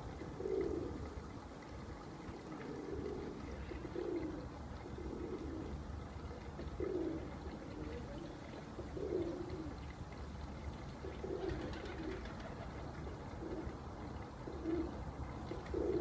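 Domestic fancy pigeons cooing: short low coos repeating every second or two.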